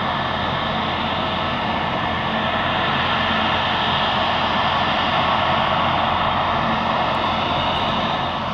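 Jet airliner engines running with a steady rushing noise and a faint steady whine, swelling slightly in the middle.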